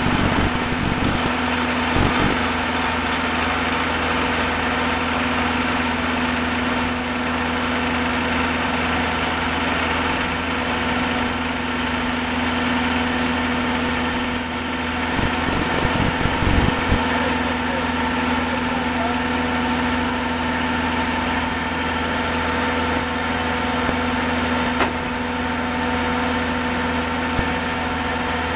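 Caisson core drilling rig running steadily, with a few short knocks about two seconds in and again around the middle.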